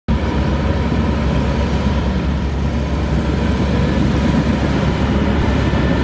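Diesel engines of a Hyundai crawler excavator and a Cat bulldozer running steadily as they dig and push soil, a continuous low rumble.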